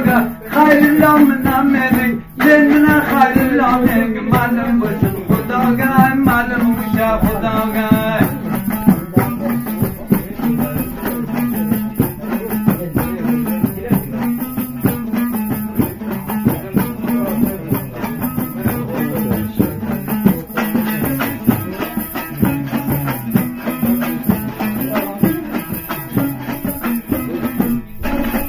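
A man singing a folk song to a strummed dambura, the two-stringed Afghan long-necked lute, for about the first eight seconds. After that the dambura goes on alone, strummed rapidly.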